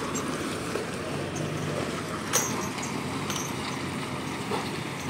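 Heavy goods trucks' engines running steadily at low revs, with one short sharp click about two and a half seconds in.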